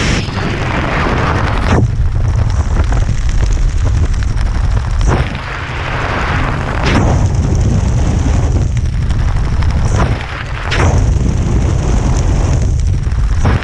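Loud wind rushing and buffeting over a body-worn camera's microphone during a parachute descent under canopy, a constant deep rumble with hiss that changes abruptly every few seconds as the jumper turns.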